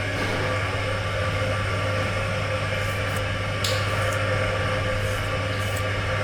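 Steady electrical hum of a running appliance or machine, with a few faint light clicks.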